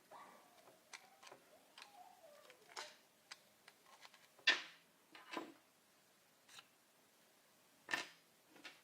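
Faint scattered clicks, taps and rustles of small objects being handled, with two sharper knocks, about four and a half and eight seconds in.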